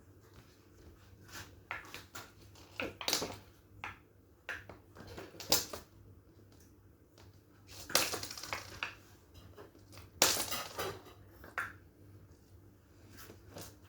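Silicone pop-it keychain fidget toy being popped: a string of irregular soft pops and clicks as its bubbles are pressed through, with a few louder pops among them.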